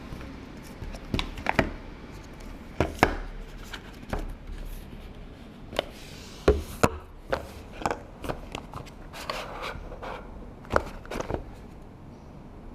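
A product box and its packaging being opened and handled by hand: irregular sharp clicks and taps, with a short bout of rustling about two-thirds of the way through.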